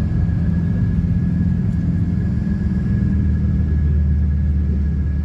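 Steady low engine and road rumble of a moving motor vehicle, with a faint thin high whine over it.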